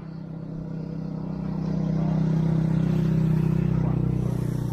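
A motor vehicle's engine humming as it passes, growing louder to a peak about three seconds in and then easing off.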